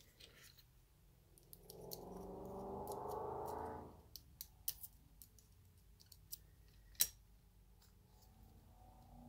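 Small steel parts of a 1908 Colt vest pocket pistol clicking and tapping as the frame is handled, several light clicks and one sharp click about seven seconds in. Before the clicks, a rubbing, rushing noise swells for about two seconds and stops abruptly.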